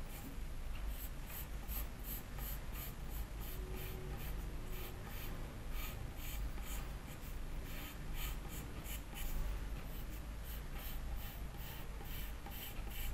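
Graphite pencil scratching on paper, sketching circles in a long run of short, quick strokes, over a steady low hum.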